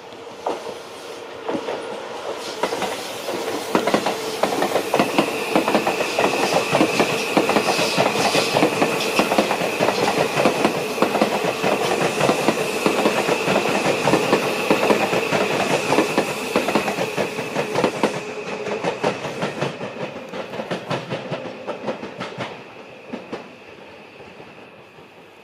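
Seibu 001 series "Laview" limited express electric train passing through at speed, its wheels clicking rapidly over the rail joints. The clatter builds over the first few seconds and fades away in the last few, with a steady high-pitched tone from about five seconds in.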